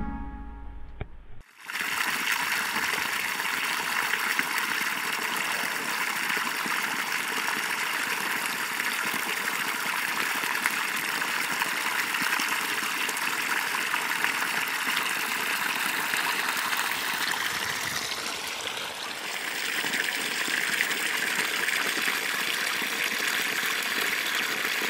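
A steady stream of water gushing from the open end of a pipe and splashing onto wet leaf litter.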